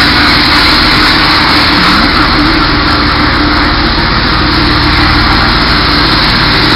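Sandblasting cabinet running: a loud, steady hiss of compressed air and abrasive blasting inside the cabinet, over the steady hum of its exhaust fan.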